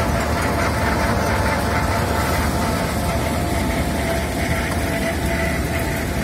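Wirtgen W 100 H cold milling machine running steadily as it mills asphalt. Its diesel engine and cutting drum make a continuous low rumble with a steady whine on top.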